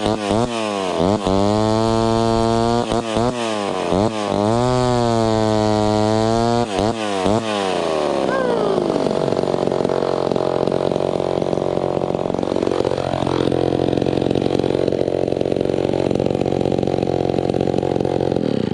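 Vintage two-stroke chainsaw with a custom exhaust, revved and let back several times, its pitch dipping and climbing. About eight seconds in it drops to a lower, rougher, steady note under load, typical of the chain cutting into a log, and runs on until it cuts off suddenly.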